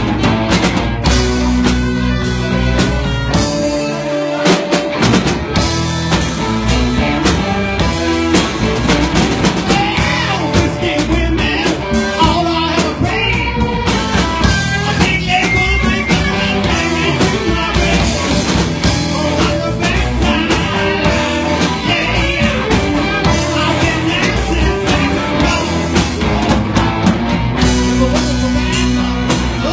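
Live blues-rock band playing, with drum kit and electric bass driving a steady beat.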